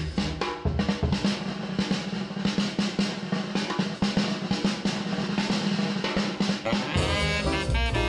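Drum solo break on a jazz record: fast, dense drum-kit strokes and rolls with the bass and horns dropped out. About seven seconds in, the full band comes back in with saxophones and brass.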